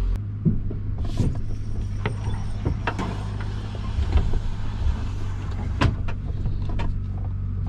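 Inside the cab of an old pickup with no transmission as it rolls along a rough dirt driveway: a steady low vehicle drone, with loose clicks, rattles and knocks from the cab and body.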